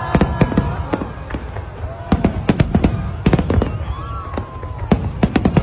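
Aerial fireworks exploding in quick clusters of sharp bangs and crackles over a steady low rumble, the bangs bunching up about two seconds in and again near the end.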